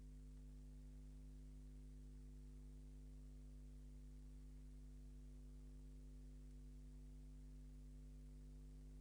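Steady low electrical mains hum over faint hiss, unchanging throughout, with no sound from the scene itself.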